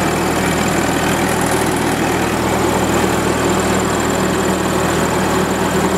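1943 Wisconsin-engined Winco generator set running steadily under light electrical load, freshly restarted after an oil top-up.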